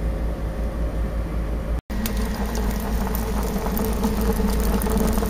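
Wood fire burning inside a wood-fired gasifier boiler: a steady low rumble, then fine crackling and popping after a brief break about two seconds in.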